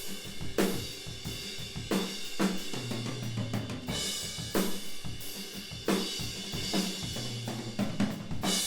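Acoustic drum kit playing a steady beat of kick and snare under a continuous cymbal wash, heard through a mid-side room microphone pair with the mid and both side channels open, which gives the kit a wide stereo spread.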